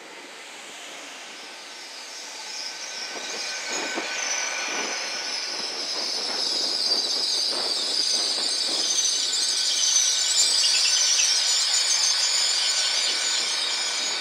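GWR Class 800 train running into the platform and slowing, a high-pitched squeal from its running gear building from about two seconds in and staying loud to the end, over a low rolling rumble with a few faint knocks.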